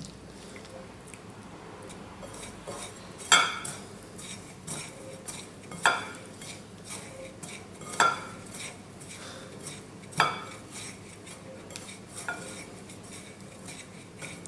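Utensil and hand clinking against ceramic plates while crayfish pieces are crumbed: four sharp clinks about two seconds apart and a softer one near the end, with faint scraping between.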